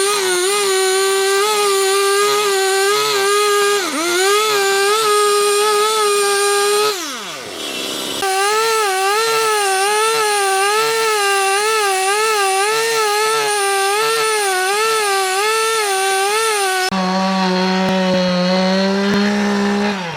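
Handheld power tool motor running hard while cutting wood, its pitch dipping and recovering about twice a second under load. About seven seconds in it winds down, then revs back up a second later.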